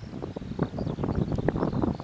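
Wind buffeting the microphone in irregular gusts, louder after about half a second, over the low rumble of a Boeing 777-300ER rolling out on the runway after landing. A few faint high chirps sound above it.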